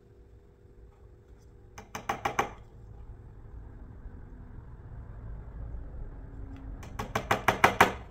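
A hammer tapping a small finishing nail into a stained cedar board: a quick run of about five light taps about two seconds in, then about eight more near the end, the last ones loudest as the nail is driven home.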